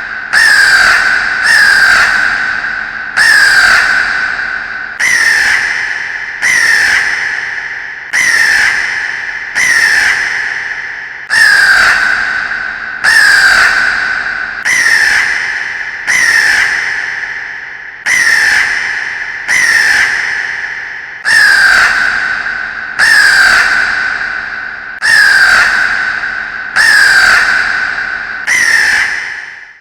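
A crow cawing over and over, one harsh call about every second and a half. Each call starts abruptly and dies away in a long echoing tail.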